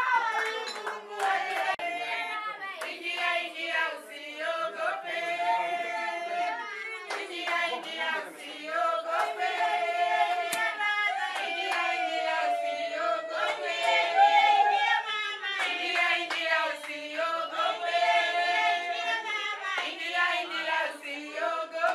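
A group of people singing together, with hand clapping over the singing.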